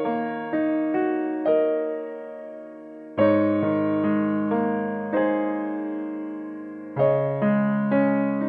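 Background music: a slow, gentle keyboard piece in a piano sound, single notes struck about once a second over held chords, with fuller chords struck about three seconds in and again near the end.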